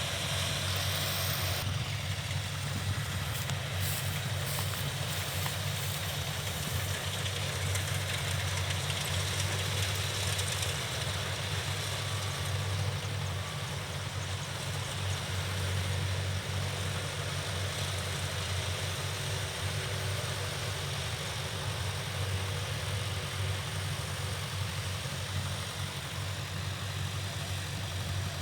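Kubota DC70 rice combine harvester's diesel engine running steadily, a constant low drone with no breaks.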